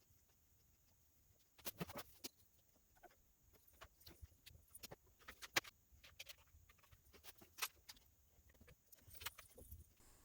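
Faint, irregular clicks and taps of small epoxy pieces and clamps being handled during a glue-up. A few sharper taps come about two seconds in and a couple more around the middle.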